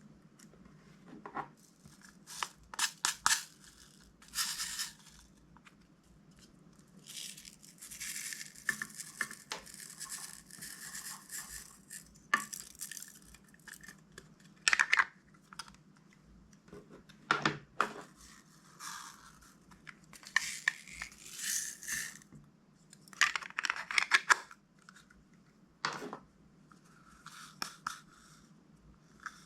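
Plastic packaging being handled and opened: irregular bursts of crinkling and ripping with sharp clicks, separated by short pauses.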